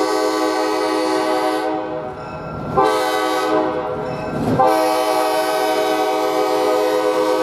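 Nathan AirChime K5LA five-chime air horn sounding a long, loud chord that sags and is blown afresh twice, just under three and about four and a half seconds in.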